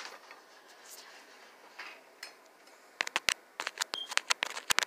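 Handling noise from a camera phone being picked up and set back up: a quick run of sharp clicks and taps starting about three seconds in, after a quiet stretch.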